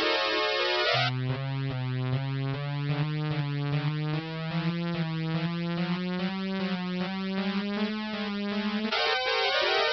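Synthesizer music: a low line climbing slowly step by step under fast, repeating higher notes, changing to a busier passage near the end.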